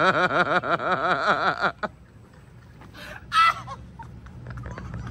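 A man laughing hard in quick, regular rising-and-falling bursts that stop abruptly under two seconds in. A short loud vocal outburst follows about three and a half seconds in.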